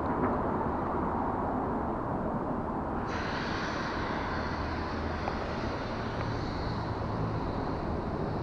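Steady rumble of road traffic, with a higher hiss joining suddenly about three seconds in and holding steady.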